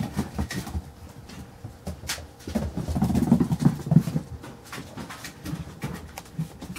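Five-week-old Carolina Dog puppies playing: scuffling, knocks and taps, and small puppy vocal noises, busiest and loudest about three to four seconds in.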